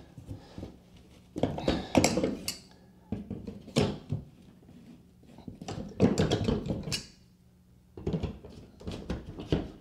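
Painted wooden baseboard being levered off the wall with a trim puller: clusters of knocks and pops as the tool bites and the board pulls off its nails. There are four bursts with short pauses between them.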